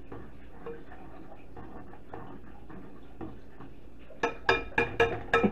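A metal spoon tapped against the rim of a small saucepan: about half a dozen quick ringing taps near the end, shaking off melted butter after stirring. Before that, only faint low sound.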